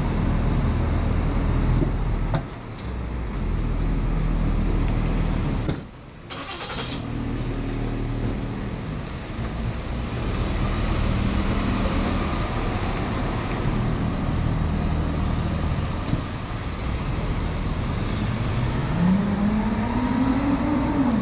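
Police SUV engine idling steadily close by, then pitching up near the end as the vehicle accelerates away.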